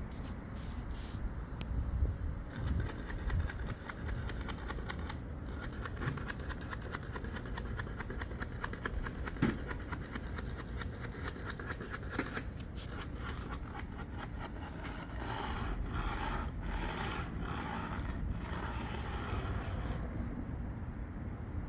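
A hand finishing tool scraping and rasping across fresh concrete in rapid repeated strokes, starting a few seconds in and stopping near the end, over a low wind rumble.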